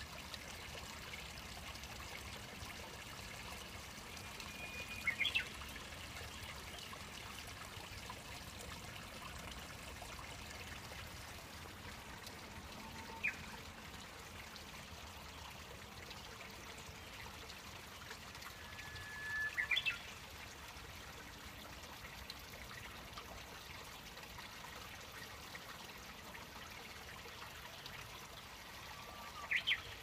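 Japanese bush warbler (uguisu) singing: three songs, each a held whistled note followed by a quick flourish, about every ten seconds, with one short single note between them.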